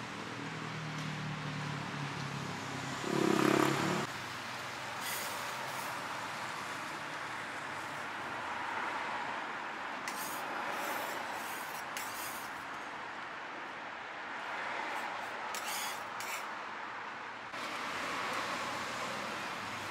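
Steady outdoor street and traffic noise. Over it come short scrapes and taps of a metal spatula on the crepe griddle, and a brief louder sound about three seconds in.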